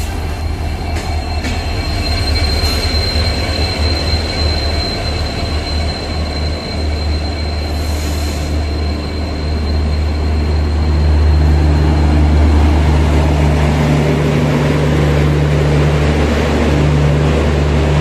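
Diesel-hauled passenger train running along a platform: a deep, steady locomotive engine rumble, with a thin high wheel squeal for roughly the first half.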